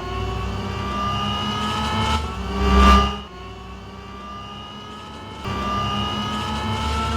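Engine sound rising in pitch in repeated sweeps, like revving, with a loud whoosh swelling and passing about three seconds in.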